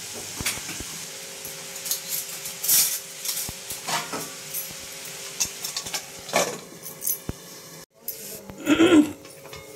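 Metal spoon scraping and clinking against a metal pan while stirring cauliflower keema, with scattered knocks and one louder clatter near the end.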